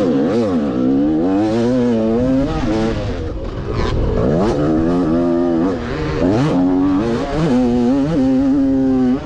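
A dirt bike's engine, heard from the rider's seat, is revved hard and then let off again and again as the bike is ridden round a motocross track. Its pitch climbs and drops several times as the bike corners and then speeds up down a straight, with rough wind and track noise underneath.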